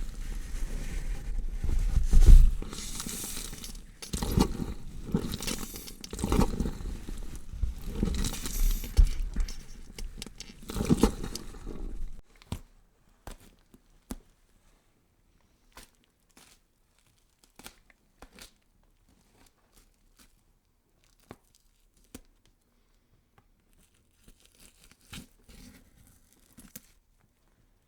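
Horror sound effect of tearing and crunching: loud, irregular ripping surges for about twelve seconds, then cutting off to sparse faint clicks and crunches.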